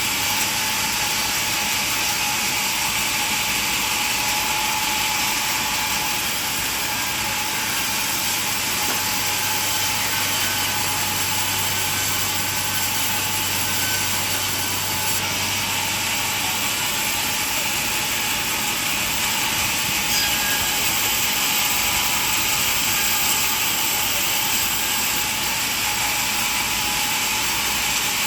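Sawmill machinery running with a steady, even noise, a low hum dropping out about halfway through.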